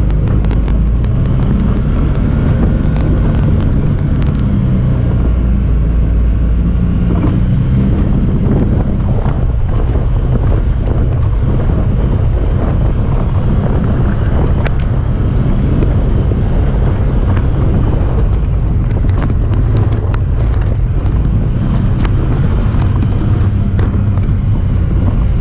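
Honda Talon 1000R side-by-side's 999 cc parallel-twin engine running steadily while driving, with many sharp clicks and rattles over it.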